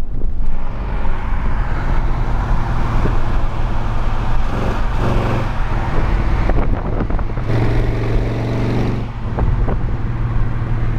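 1965 Cadillac Coupe de Ville's 429 V8 running at road speed, heard from a car driving alongside over steady road and wind rush. Its exhaust note grows louder twice, about halfway through and again near the end.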